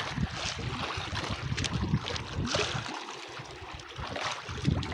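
Sea water sloshing and splashing against a small outrigger boat, with wind gusting over the microphone as an uneven low rumble.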